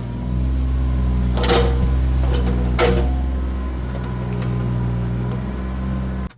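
John Deere 26G mini excavator's diesel engine running at a steady pitch while digging out a tree stump, with two sharp knocks about a second and a half in and near three seconds in. The sound cuts off suddenly just before the end.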